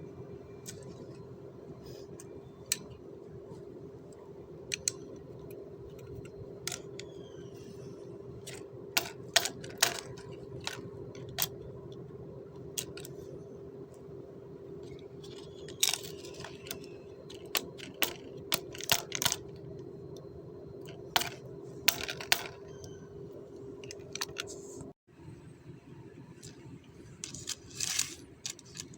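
Repeated sharp metallic clicks and taps of small parts and tools being handled during the ventilation fan bearing repair, over a steady hum with one held tone that stops abruptly about 25 seconds in.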